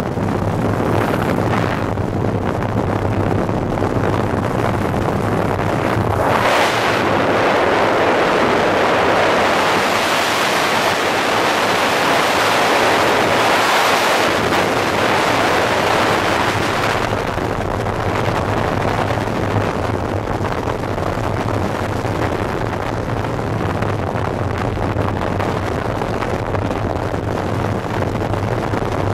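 Rushing airflow blasting the camera microphone in tandem skydive freefall, a loud steady roar. It swells about six seconds in, is loudest for the next ten seconds, then eases a little.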